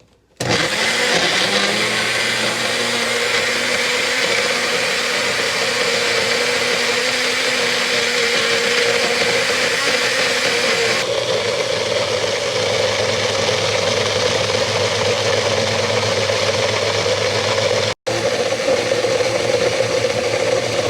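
NutriBullet blender running at full speed, blending frozen mango chunks with coconut water into a purée. Its steady motor and blade noise starts about half a second in, goes a little duller about halfway through, and breaks off for a split second near the end.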